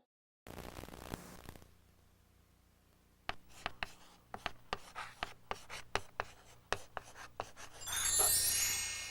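Intro sound effects: a short hiss, then a run of quick, irregular sharp taps like a pencil writing and tapping, then a bright shimmering chime flourish about eight seconds in that rings on as it fades.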